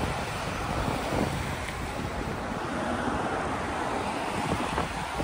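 Steady rush of wind buffeting the microphone of a camera riding on a moving bicycle, mixed with street traffic.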